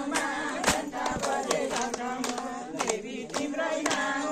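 A group of women singing a devotional bhajan together, keeping the beat with hand-claps at about three a second.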